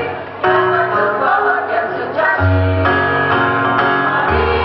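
Women's choir singing a song in held notes through stand microphones, with a brief dip just after the start before the voices come back in.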